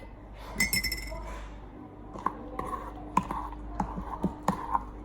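Utensil clinking and tapping against a mixing bowl while slime is stirred: about ten light taps, with a ringing chink about half a second in.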